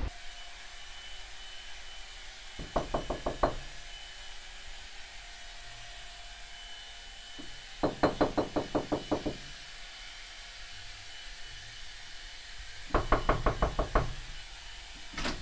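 Knocking on a door: three runs of quick, repeated knocks about five seconds apart, the middle run the longest.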